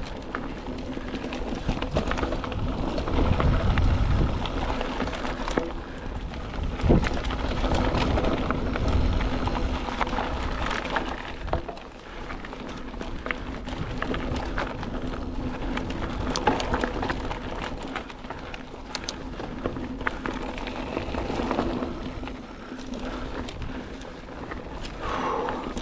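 Mountain bike riding over a dirt singletrack trail: a steady crunch and rush of the tyres, with many small clicks and rattles from the bike over rough ground and heavier low rumbles a few seconds in.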